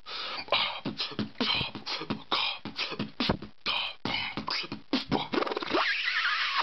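Solo human beatboxing: a quick, dense beat of mouth-made drum sounds, with deep kicks and hissy hi-hat and snare hits. A wavering pitched vocal sound comes near the end.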